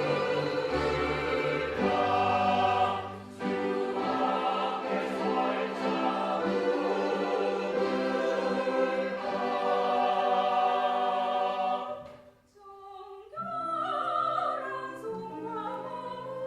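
Church choir singing a sacred anthem in sustained parts. About twelve seconds in the singing stops for about a second, then comes back softer.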